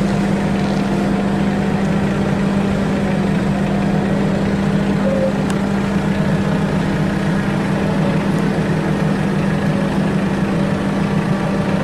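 Machinery of a biomass gasifier plant making producer gas, running with a steady, loud low hum.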